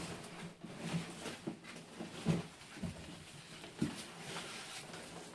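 Packaging being handled inside a large cardboard box: plastic wrapping rustling, with irregular knocks and bumps against the box every half second or so.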